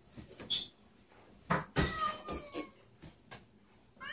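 A domestic cat yowling: a short high cry about half a second in, then a long, drawn-out meow from about a second and a half in whose pitch falls, followed by a few short knocks.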